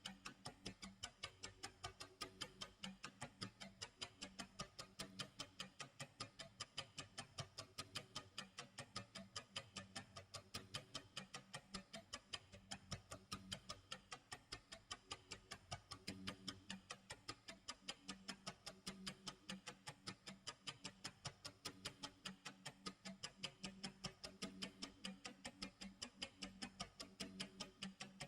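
Clock tick-tock sound effect: quick, evenly spaced ticks that keep going without a break, over a faint low tone that comes and goes.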